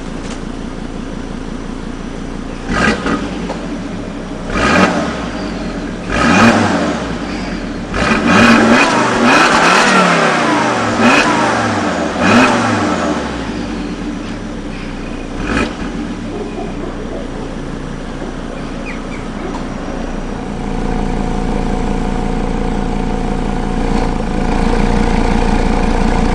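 Volvo S60 2.4T's turbocharged inline-five on its stock exhaust, idling and then revved in a string of quick blips, each rising and dropping back. It then settles to a steady run that grows louder near the end.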